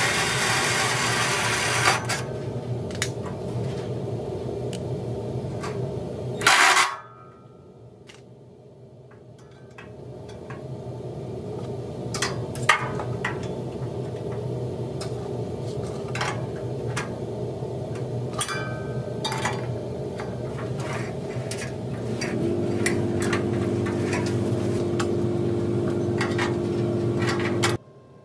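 Cordless drill boring through a steel bracket, stopping about two seconds in. After that come scattered clicks and knocks of metal parts being handled and fitted, over a steady low hum.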